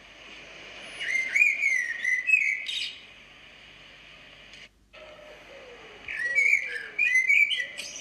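Goeldi's monkeys calling with high, chirping whistles that slide up and down. The calls come in two bouts of about two seconds each, the first about a second in and the second about six seconds in.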